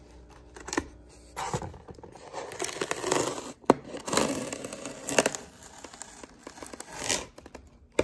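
Blue masking tape being peeled off styrofoam insulation in a run of rasping, tearing pulls, with a sharp click a little past the middle.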